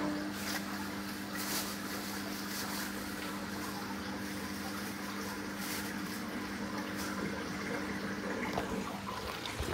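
Aquarium water pump or filter running: a steady rush of moving water under a low motor hum. The hum stops shortly before a soft knock near the end.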